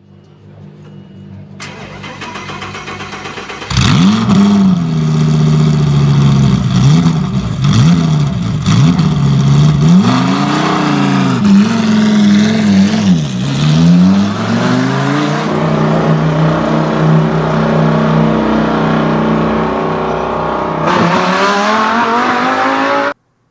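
Sports car engine building up, then revving up and down several times. It finishes with a long, steadily rising pitch as the car accelerates, and cuts off suddenly.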